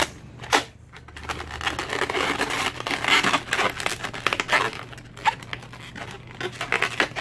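Latex modelling balloons (260Q) rubbing and crinkling against each other and the fingers as hands twist and tie them, with a sharp snap about half a second in.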